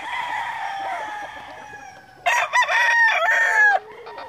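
Gamecock stags crowing: one fainter, more distant crow, then a loud close crow starting about two seconds in and lasting about a second and a half.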